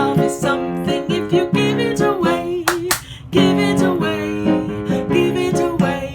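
A woman singing a children's song to a piano accompaniment, with two quick claps about three seconds in, marking the end of a line.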